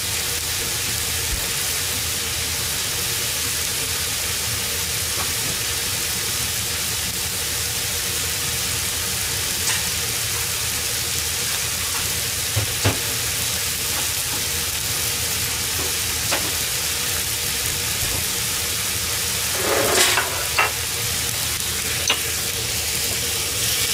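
Diced onion, celery, carrot and chicken sizzling steadily in a frying pan, being sweated down as a soffritto base. A few light clicks break in, with a louder clatter about twenty seconds in.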